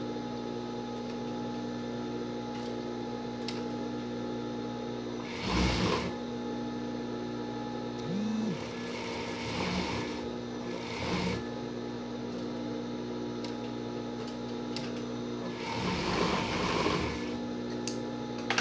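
Industrial overlock (serger) machine: a steady motor hum, broken by four short runs of stitching, the longest near the end.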